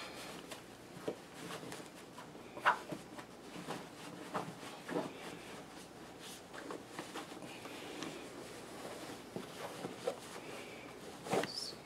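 Rustling and handling noises with scattered short clicks and taps, the sharpest about three seconds in, as the snake-tail costume and body suit are handled and fitted.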